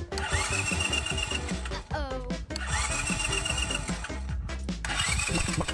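Engine-start sound from an electric mini dirt bike, set off by its handlebar start button: a rising whine that levels off into a fast warble and then stops, three times about 2.5 s apart, over background music. A short falling tone comes between the first two tries.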